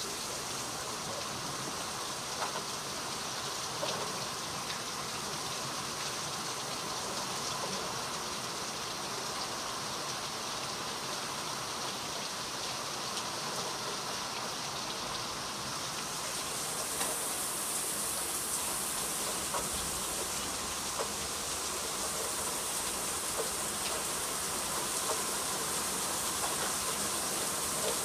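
Steady rain falling in a thunderstorm, with scattered drips ticking on nearby surfaces. The hiss grows a little louder and brighter about two-thirds of the way through.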